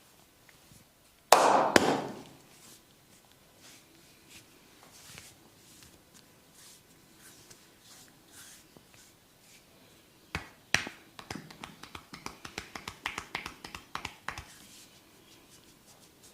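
Hand strikes of a barber's massage: one loud slap about a second in, then two sharp claps followed by a fast run of quick taps, about eight a second, for three or four seconds.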